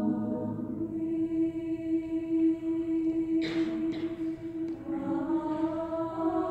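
A large mixed choir sings a held chord in slow, sustained notes. There is a brief hiss about three and a half seconds in, and new higher notes come in around five seconds in.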